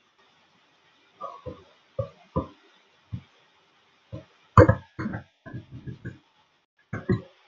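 Laptop keyboard keystrokes: a dozen or so irregular dull taps as numbers are typed and deleted in a field, with a quick run of several taps near the end.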